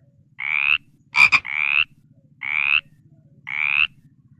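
An animal calling: four short, buzzy calls about a second apart, each rising slightly in pitch, with a sharper, louder call about a second in.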